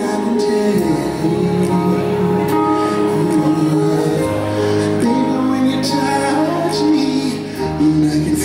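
Live R&B ballad: a male lead singer holding and bending long notes into the microphone over soft, sustained accompaniment.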